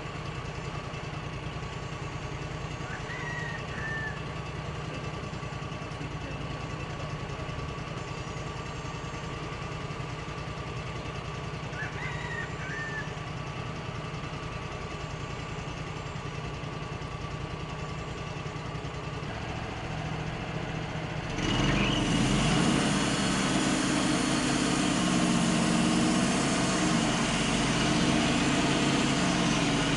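The engine of a Wood-Mizer LT35 portable band sawmill idling steadily, then throttled up abruptly about two-thirds of the way through and running loud at high speed, as it does when the band blade is engaged. A few faint bird chirps sound over the idle.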